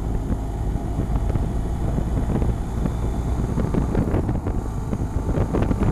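Wind buffeting the camera microphone on a BMW R1250 GS Adventure cruising at about 50 mph, over the low, steady drone of its boxer-twin engine and road noise.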